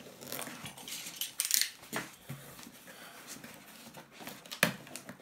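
Packing tape on a cardboard box being slit with a box cutter and then pulled free by hand: scraping and rustling with a few sharp clicks and taps, the loudest about a second and a half in and another near the end.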